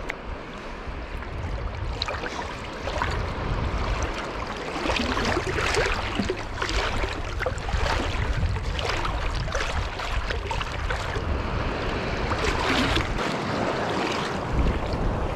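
Sea water lapping and splashing close by in quick irregular bursts, over a low rumble of wind on the microphone.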